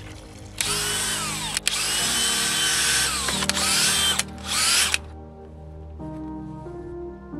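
Cordless drill driving a paddle mixer through wet stucco in a plastic bucket, run in three bursts with short breaks. Its motor whine slides down and up in pitch as the trigger is eased and squeezed, and it stops about five seconds in. Background music plays throughout.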